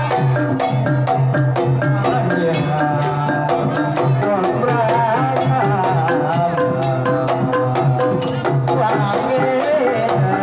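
Banyumasan gamelan music for a tayub piece: steady hand-drum strokes on the kendang over gongs and metallophones, with a woman singer's wavering voice above.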